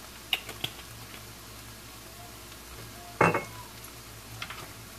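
Light clicks as the cap goes back on a glass vinegar bottle, then a single clink-knock with a short ring about three seconds in as the bottle is set down on the stone countertop, over a steady low hum.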